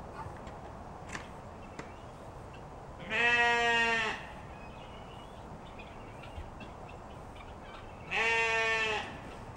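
A sheep bleating twice, two long calls each held at one pitch, about five seconds apart.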